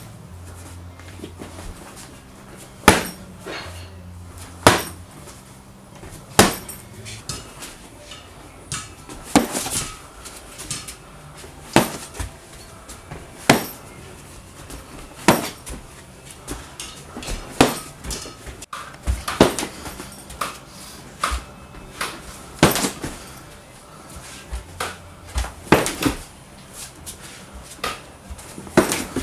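Repeated shin kicks landing with sharp smacks, about one every one and a half to two seconds.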